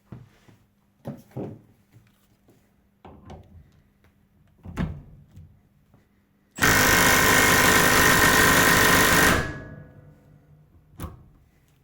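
A few light handling knocks and clicks, then about six and a half seconds in a Milwaukee M12 Stubby impact wrench, running in reverse, hammers rapidly against a torque tester for about three seconds before stopping.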